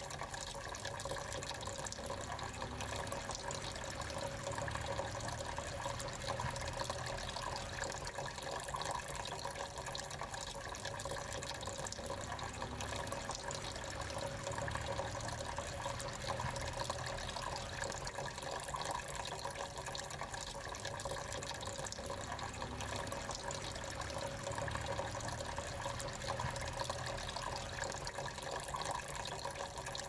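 Small tabletop waterfall fountain running: thin streams of water pouring from pot to pot, a steady trickling and splashing.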